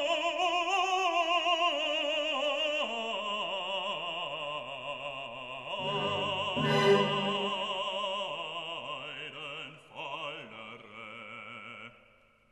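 Operatic singing with a strong, wavering vibrato, laid over the footage as a music soundtrack, dying away near the end.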